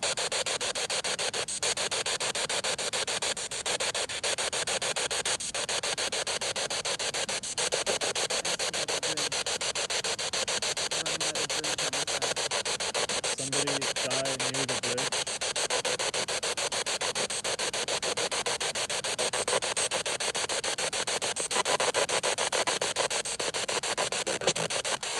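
Handheld radio-sweep spirit box hissing with static, chopped into rapid pulses as it scans through stations. A brief pitched snatch of radio sound breaks through about halfway, which the investigators take for a spirit voice.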